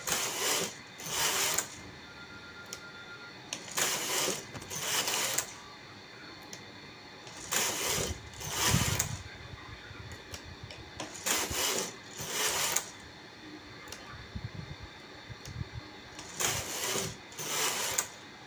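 Carriage of a Brother single-bed knitting machine pushed across the needle bed and back, knitting rows. It comes as five pairs of short sweeps, each about half a second, with pauses of a couple of seconds between the pairs.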